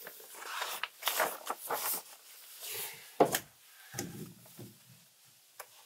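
Polyethylene vapor barrier sheet crinkling and rustling as it is handled and pressed against the wall over fibreglass insulation, with one sharp click about three seconds in.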